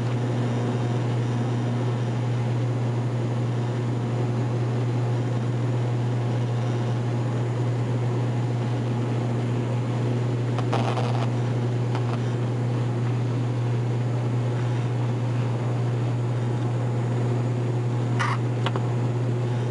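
Cabin drone of an ATR 72-500 turboprop climbing out after takeoff: its Pratt & Whitney PW127 engines and six-blade propellers give a steady hum with a strong constant low tone. A couple of faint clicks are heard around the middle and near the end.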